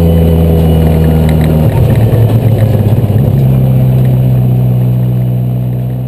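Citroën Saxo 1.6 16-valve four-cylinder race engine heard from inside the cockpit, running hard at steady revs. Partway through it turns rough and stuttering for about a second and a half, then settles to a steady note again and fades out near the end.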